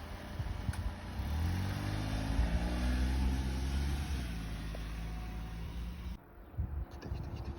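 A car's engine passing close by, its note falling in pitch as it goes past and then holding steady. The sound drops away suddenly about six seconds in.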